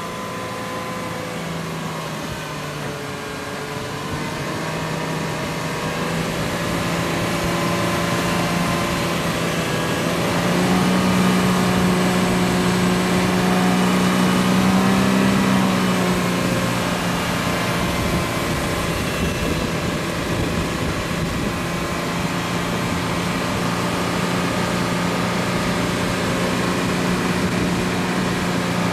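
Winch motor hauling a Toyota Land Cruiser 200 slowly out of a river: a steady mechanical whine that rises in pitch and loudness about ten seconds in and eases back about six seconds later.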